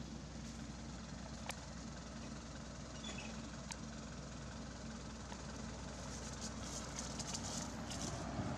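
A steady low engine-like hum, with light crackling near the end.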